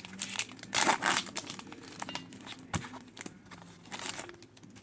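A Pokémon card booster pack's foil wrapper being torn open and crinkled in the hands. Irregular crackles, loudest about a second in, thinning out toward the end.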